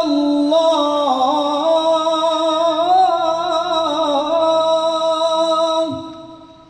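A man's voice reciting the Quran in the melodic tilawah style, holding one long ornamented note whose pitch wavers and slides up and down, then breaking off about six seconds in.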